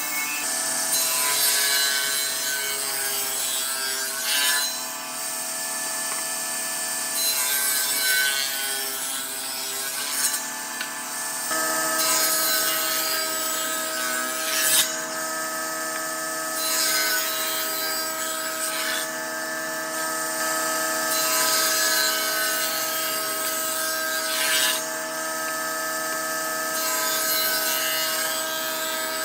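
Wood lathe running with a steady motor hum while a tool cuts and scrapes the spinning wood, the rasping swelling every two to three seconds with each pass. The hum's pitch shifts about a third of the way in.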